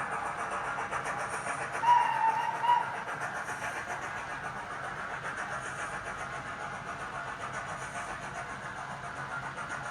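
Model 9F steam locomotive running steadily around the layout with a long train of open wagons, a continuous running rumble with fast, regular ticking from the wheels on the track. A brief high-pitched tone sounds twice in quick succession about two seconds in.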